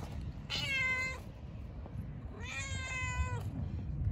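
Tabby cat meowing twice, two drawn-out meows of about a second each, the second a little longer.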